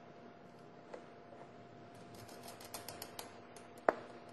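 Small metallic clicks and ticks from hands handling the partly disassembled Weihrauch HW100 air rifle action, with a run of light ticks in the middle and one sharper click near the end, over a faint steady hum.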